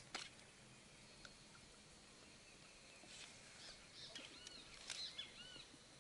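Faint bird chirps: a quick series of short arched notes in the second half, after two sharp clicks right at the start.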